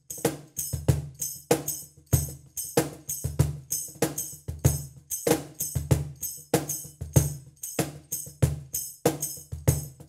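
Cajon foot tambourine with five pairs of stainless steel jingles, shaken by the foot in a steady groove alongside a cajon played by hand: sharp jingle strokes about three a second over a low drum tone.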